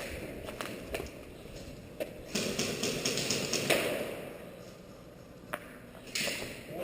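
Airsoft gun firing a quick string of shots, a rapid run of sharp cracks lasting over a second, with a few single shots or clicks before and after.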